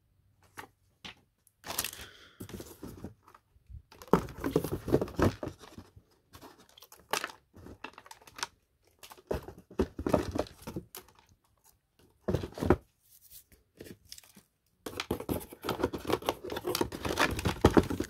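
Unboxing handling noise: crinkling plastic and rustling packaging as a clock radio is lifted out of its foam tray and cardboard box. It comes in irregular bursts with short pauses between them.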